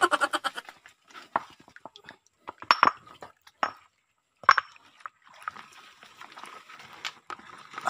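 Scattered sharp clicks and clinks of hard objects knocking together, some with a brief ring. From about five seconds in come the faint trickling and light splashing of a shallow rocky stream, as hands feel among the stones.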